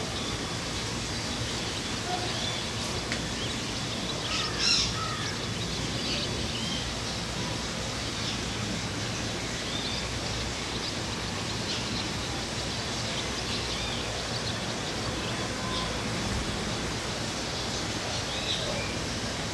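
Many birds calling and chirping as they settle to roost at nightfall, short calls scattered throughout with one louder call about four to five seconds in, over a steady low background rumble.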